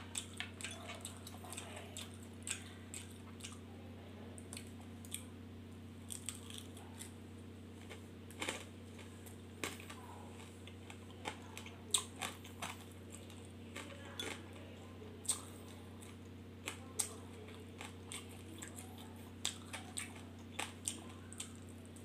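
A person chewing and biting grilled prawn and seafood close to the microphone: irregular wet smacking and crunching clicks, over a steady low hum.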